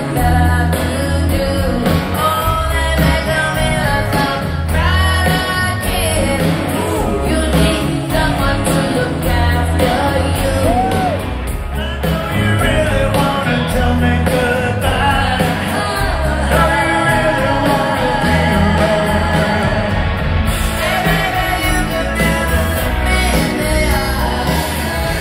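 Live rock band playing, with a woman singing lead over a steady bass beat, heard from the audience at an outdoor concert.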